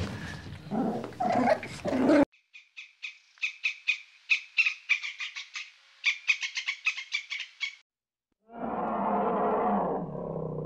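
Animal calls from separate clips cut one after another: a loud rough call for about the first two seconds, then about five seconds of rapid, high-pitched chattering pulses, then a short gap and a low, rough drawn-out call.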